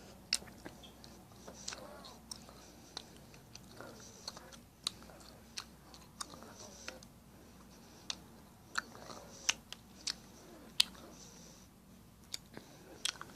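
Close-up chewing of Rain-Blo gumballs: irregular sharp crunches and clicks as the hard candy shells break, between quieter chewing.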